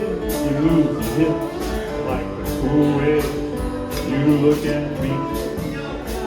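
Guitar strumming a steady rhythm while a slide guitar plays held notes that glide in pitch over it, an instrumental passage without singing.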